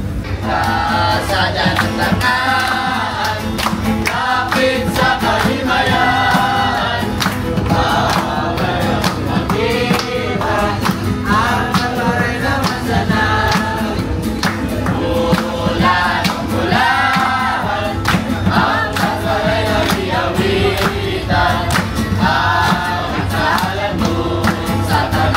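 A group of voices singing a Christmas carol in chorus to an acoustic guitar, with steady rhythmic hand-clapping on the beat.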